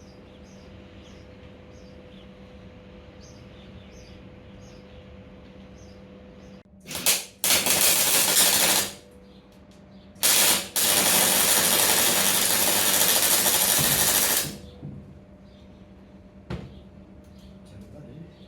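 Electric arc welding on steel plate: two bursts of loud crackling arc, a short one of about two seconds and then a longer run of about four seconds, each starting with a brief stutter as the arc strikes. Between the welds a steady electrical hum.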